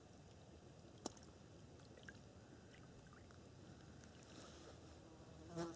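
Near silence: faint outdoor background, broken by one sharp click about a second in and a brief louder sound near the end.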